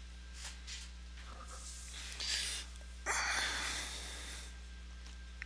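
A man breathing close to the microphone: a short exhale about two seconds in, then a longer, louder one about a second later, over a steady low electrical hum.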